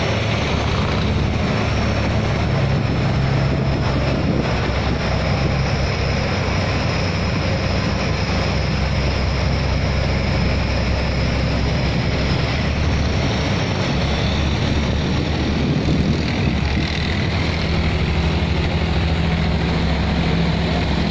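Engines of wooden river cargo boats running steadily at high throttle as they push through a sluice against a fast current, with the water rushing. A second boat passes close near the end.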